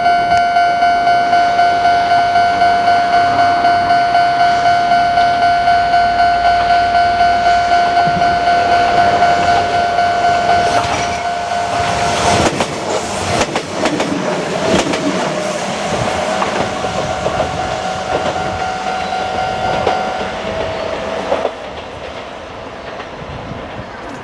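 Japanese level-crossing warning bell ringing in rapid, even dings as a Kintetsu Minami Osaka Line electric train passes over the crossing about halfway through, its wheels clattering over the rail joints. The bell stops near the end.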